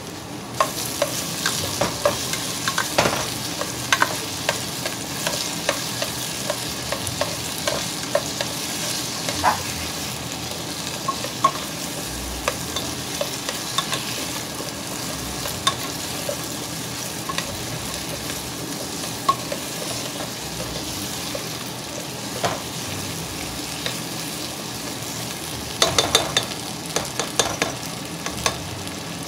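Potato and carrot chunks sizzling steadily in oil in a nonstick pot. A cooking utensil scrapes and knocks against the pot as they are stirred, in scattered clicks that bunch together near the end.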